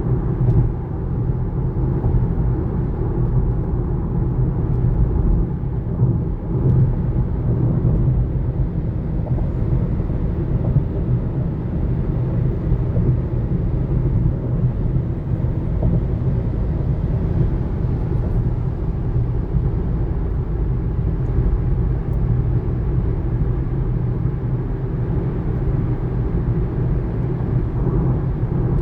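A 2019 Kia Niro driving, with a steady low road and tyre rumble; no high-pitched brake squeal stands out.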